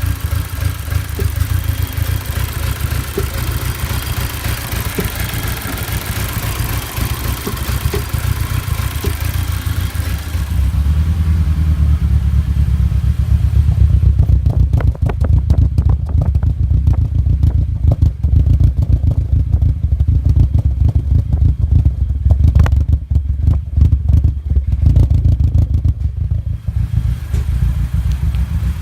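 Audi A4 B7 engine running rough with a misfire, which the owner traced to a holed piston in cylinder 1. About ten seconds in the sound turns deeper and stronger. From then on it is broken by irregular, uneven beats.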